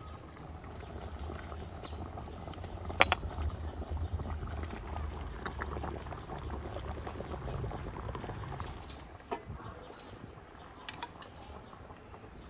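A metal ladle scooping broth and boiled beef hooves out of a steaming cast-iron cauldron into a bowl: liquid pouring and sloshing, with a sharp metal clink about three seconds in and a few more clinks near the end.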